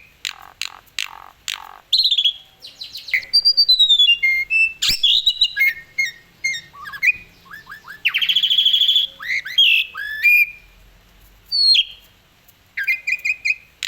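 Asian pied starling (jalak suren) singing a varied song of short phrases: clear whistles, quick down-slurred notes, rapid repeated ticks and a harsh buzzy chatter about halfway through. The phrases come in quick succession with a brief pause near the end.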